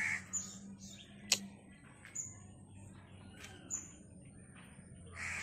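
Birds calling: short high chirps repeating about every second and a half, with a couple of louder, harsher calls at the start and near the end. One sharp click about a second in.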